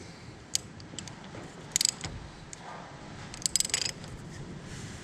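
Metal hand tools clinking and clicking against each other and the steel of a corn head gearbox: a single click, then two short bursts of rapid clinks.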